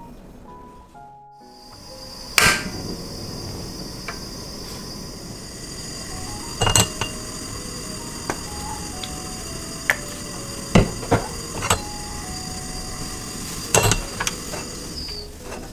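Kitchen cooking sounds: a steady hiss that starts about a second in and cuts off near the end, with a few sharp knocks of utensils on cookware, over light background music.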